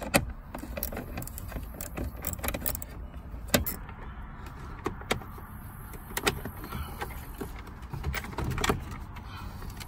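Scattered light clicks and small clatters of a screwdriver and plastic dash trim as a hidden screw is backed out below the climate controls and a Ford F-150's radio faceplate is worked loose, over a low steady rumble.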